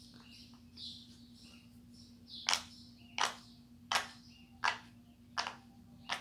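Square silicone pop-it fidget toy: bubbles pressed one at a time, giving six sharp pops evenly spaced about 0.7 s apart in the second half, after a few fainter presses.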